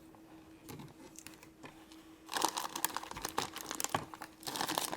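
Crinkling and rustling of toy packaging as accessories are taken out of a small plastic carry case. It starts about two seconds in and runs in a dense crackle.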